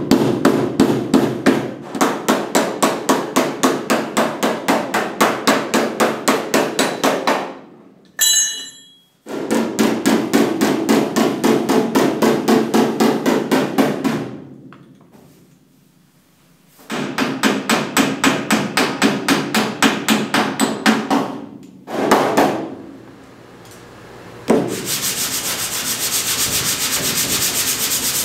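Body hammer tapping a steel car door panel against a dolly, in runs of quick light blows with pauses between, knocking out flat, rolled-in spots along the door edge. Near the end a steady rubbing takes over, a sanding block worked across the bare steel.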